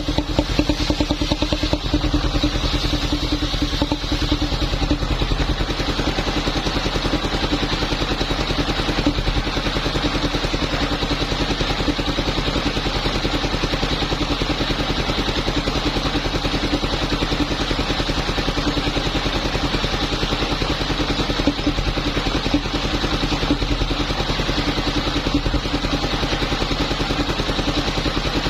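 Engine of a machine wood saw running steadily at a constant speed, with an even rapid pulsing.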